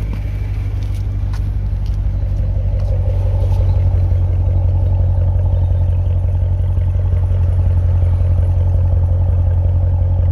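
2019 Chevrolet Corvette Stingray's 6.2-litre LT1 V8 idling steadily, heard at its quad exhaust tips. The exhaust valves are held open by the pulled exhaust-valve fuse, so the idle is loud.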